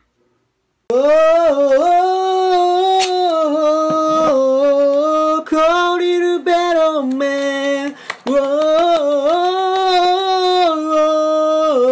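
A man singing a long, drawn-out "oh" in a high voice, held notes that slide up and down with a few short breaks. It starts about a second in.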